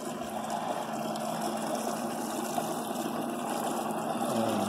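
Drummond sump pump running steadily, circulating Barnacle Buster descaler through an overheating outboard's cooling passages to flush out scale, with a steady rush of liquid and a faint low hum.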